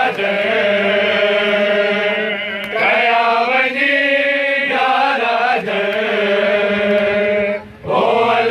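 Voices chanting a Sindhi noha, a mourning elegy, in long held, wavering notes, with a short break for breath near the end.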